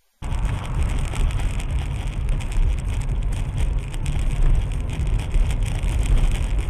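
Steady rumble and hiss of a moving car, picked up by a dash camera, starting abruptly just after a cut of silence.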